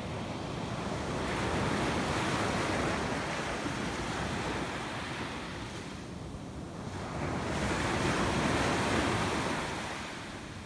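Sea waves washing ashore, rising and falling in two swells about six seconds apart.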